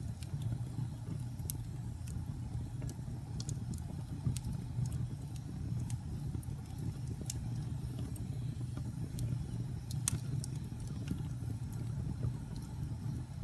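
Fire burning with a steady low rumble and scattered sharp crackles and pops, one louder pop about ten seconds in.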